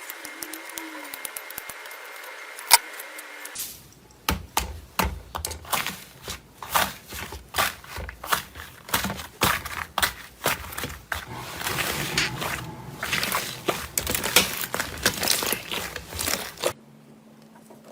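Slime being squeezed and poked by hand, giving many sharp, irregular clicks and pops, a few a second, over a crackle. Before this there are a few seconds of quieter hiss with one sharp click.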